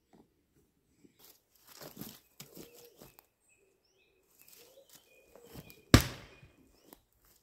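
Crunching and rustling in the twig litter of the forest floor, then one sharp, loud wooden knock about six seconds in as a thrown holly rabbit stick strikes home.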